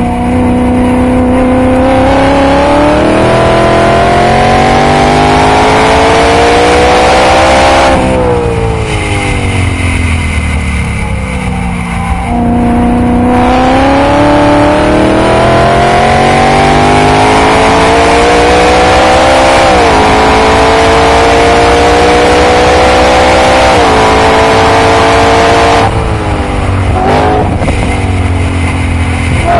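Supercharged BMW E92 M3's S65 V8 with a titanium Akrapovic exhaust, heard on board at full throttle around a race track. The revs climb for about eight seconds and fall off over the next four as the car lifts and brakes. They then climb again through two quick upshifts about twenty and twenty-four seconds in, before the throttle comes off again near the end.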